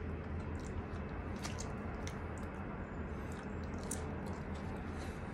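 Close-miked chewing of grilled onion: scattered short wet mouth clicks and smacks over a steady low hum.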